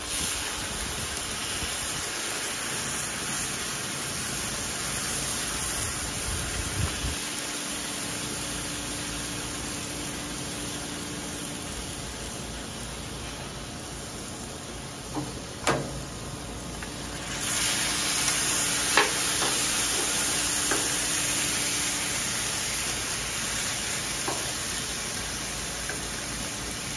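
Cochinita pibil (pulled pork) sizzling steadily on a hot steel flat-top griddle, the sizzle getting louder about two-thirds of the way in. A few sharp clicks of metal spatulas on the griddle are heard in the second half.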